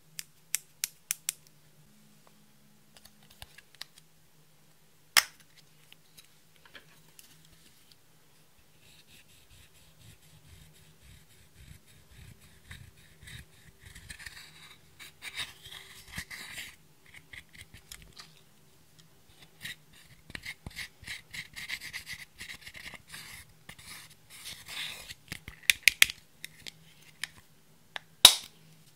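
Pressed eyeshadow being scraped and crumbled out of its compact with a plastic spatula: dense scratchy, gritty scraping through the middle. Sharp plastic clicks of makeup cases and lids come a few times near the start, once about five seconds in, and loudest near the end.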